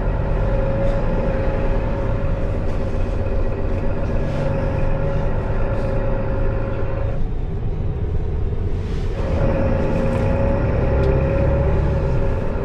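Inside a moving Mercedes-Benz city bus: the drivetrain runs with a steady low hum and a whine. The whine drops away for about two seconds past the middle, then comes back.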